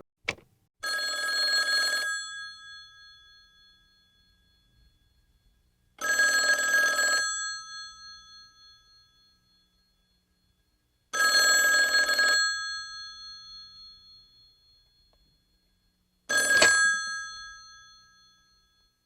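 Telephone bell ringing: four rings about five seconds apart, each about a second long with a ringing fade afterwards, the last one cut short. A short click comes just before the first ring.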